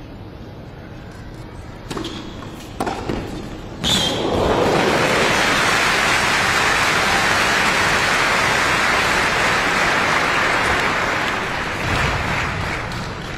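Three tennis-ball strikes off racket strings, less than a second apart. Then a crowd applauding loudly for about eight seconds, fading near the end.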